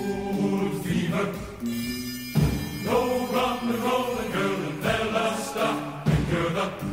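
Film soundtrack music: a choir singing, with a brief lull about two seconds in.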